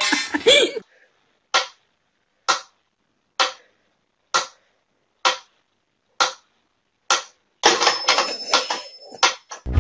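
Mechanical metronome ticking steadily, a little more than one tick a second. Near the end a hissing, rustling noise comes in under the ticks.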